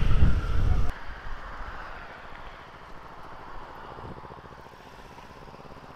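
Motorcycle running at road speed with heavy wind rush for about the first second, then an abrupt cut to a much quieter, steady low motorcycle engine idle.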